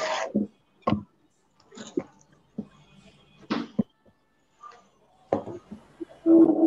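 Scattered household background noises through video-call microphones: a few short knocks and rustling bursts, with a brief faint voice-like sound near the end, and no clear speech.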